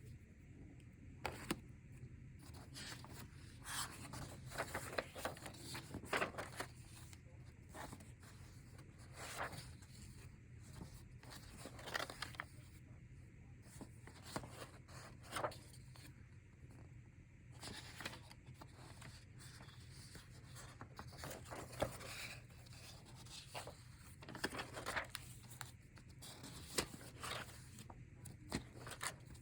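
Paper sheets of a notes folder being handled and leafed through: irregular rustles and soft clicks, over a steady low room hum.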